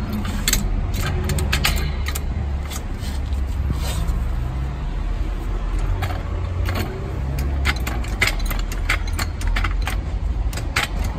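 Hydraulic trolley jack being pumped to lift the front of an ATV: irregular metallic clinks and rattles from the jack and its handle, over a steady low rumble.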